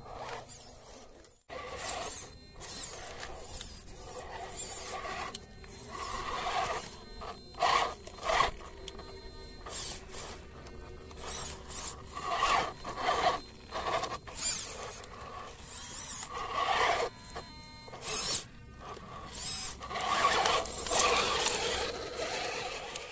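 Electric motor and gears of a 1/10-scale RC rock crawler whining in short bursts of throttle as it climbs over rocks, with tyres scraping on rock and mud.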